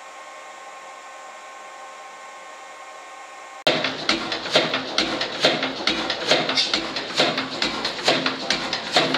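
A faint steady hum for the first few seconds, then the Blackstone 32 HP spring-injection oil engine running slowly, its valve and injection gear clanking in an even rhythm of about two beats a second.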